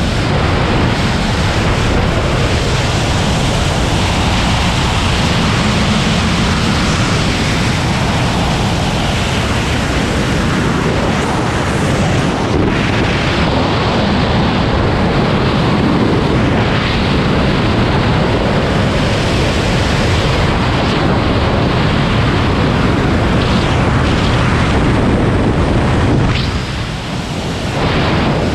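Wind rushing over a flying wingsuit pilot's camera microphone: a loud, steady rush of airflow noise that dips briefly near the end.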